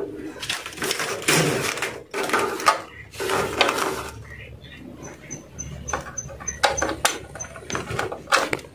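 Vinyl electrical tape being pulled off the roll and wound around wiring: a string of short, irregular rasping tears with handling rustle between them.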